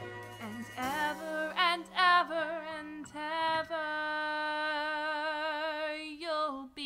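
Female voice singing a musical-theatre song with sparse backing, holding one long note with vibrato in the second half before a few shorter sung notes.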